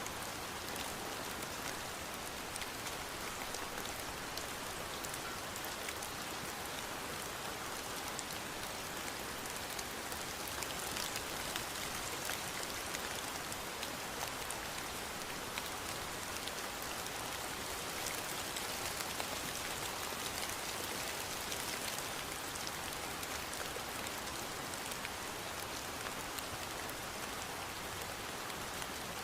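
Steady rain falling, a dense even hiss with fine drop patter.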